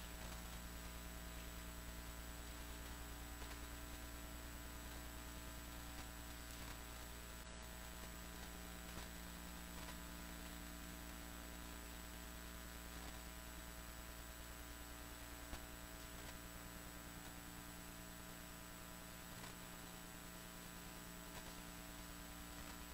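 Steady electrical mains hum with faint hiss in the audio feed, with a small click about fifteen seconds in.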